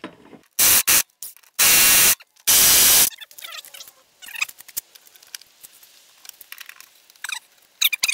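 Impact wrench hammering on a lawn mower's blade bolt in four short, loud bursts within the first three seconds. The bolt does not break loose.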